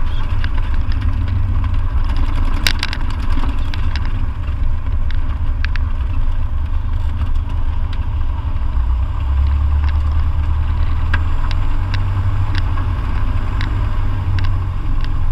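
Light aircraft's engine running at low power, heard inside the cockpit as a steady low drone that strengthens about nine seconds in, with occasional short clicks and rattles.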